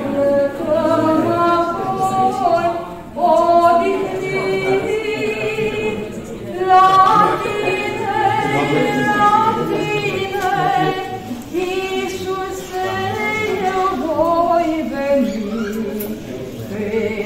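Voices singing a Romanian Orthodox pricesne, a devotional hymn, with long held and gliding notes.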